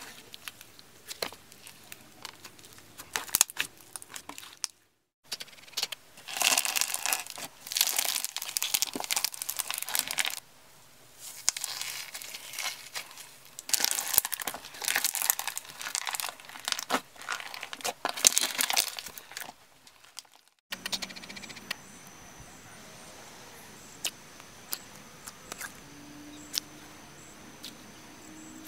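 Hands squeezing and pressing slime: scattered soft pops and clicks at first, then long stretches of dense crackling and crinkling as a slime packed with beads is pressed, typical of crunchy slime. In the last several seconds only occasional small pops over a steady high tone.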